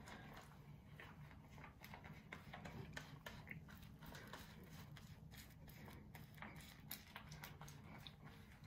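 Faint, irregular squishing and clicking of rubber-gloved fingers working relaxer cream through hair, over a low steady hum.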